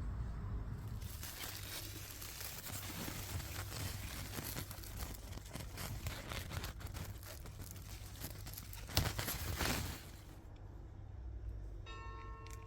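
Dense rustling and crackling of plants and leaves being handled, louder in two spots near 9 and 10 seconds. Near the end a chime starts ringing.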